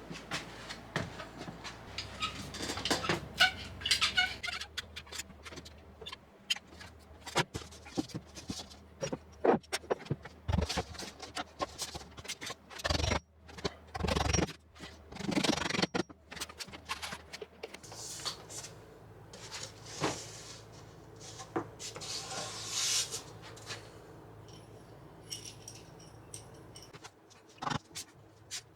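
Irregular knocks, clicks and scrapes of hand work on plumbing and cabinets, with no steady rhythm.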